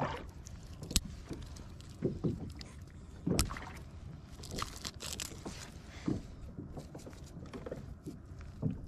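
Fishing gear being handled aboard a kayak: scattered knocks and rustles, with two sharp clicks about a second and three and a half seconds in, over a low steady rumble.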